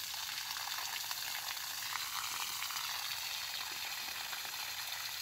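Steady stream of water from a garden hose splashing onto soil and leafy plants: an even hiss.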